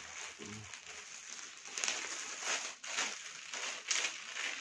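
Clear plastic packaging around a new backpack crinkling and rustling as hands press and handle it, in uneven bursts.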